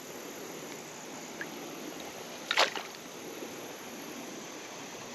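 Steady rush of flowing creek water, broken about two and a half seconds in by one short, sharp slap or splash.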